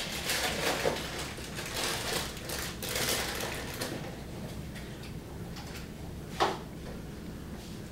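A Pembroke Welsh Corgi shoving its nose and chest through fresh snow: bursts of snow crunching and rustling through the first four seconds, then one short, sharp, louder sound about six and a half seconds in.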